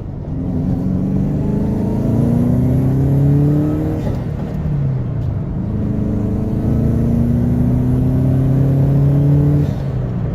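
Subaru GC8 Impreza WRX's turbocharged flat-four accelerating hard, its pitch rising steadily, dropping at a gear change about four seconds in, then rising again until another shift near the end. The boost controller has just been turned out one turn, and the pull shows only 1 or 2 psi more boost than stock.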